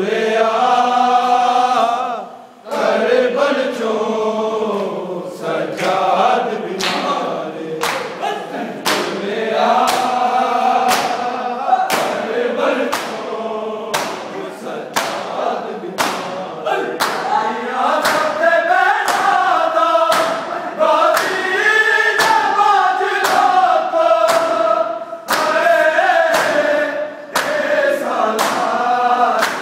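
Men's voices chanting a noha together in a mourning lament, with sharp slaps of open hands on bare chests keeping a steady beat about once a second.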